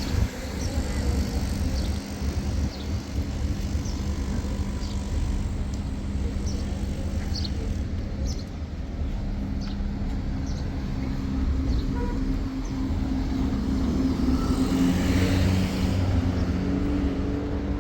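An engine running steadily: a continuous low rumble with a steady hum.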